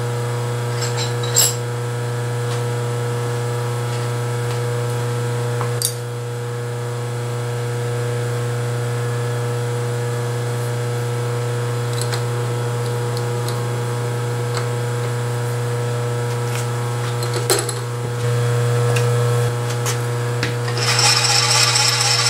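Steel parallels and a workpiece being set by hand in a milling-machine vise, with a few sharp metal clicks and knocks over a steady shop hum. Near the end comes a denser scraping and rubbing of metal on metal.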